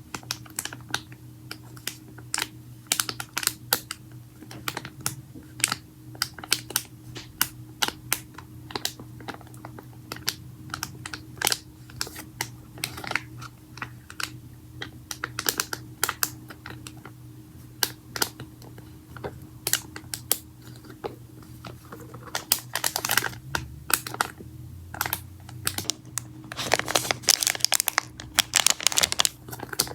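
Hands stretching, folding and mixing slime: a steady run of sharp, irregular clicks and pops, with denser crackling runs a little after the middle and again near the end.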